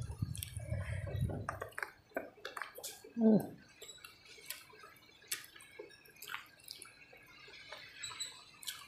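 Close-miked eating by hand: wet chewing and lip-smacking clicks, with a low handling rustle in the first second and a half as fingers work the rice and fish. About three seconds in, a short hummed "mm" with a falling pitch is the loudest sound.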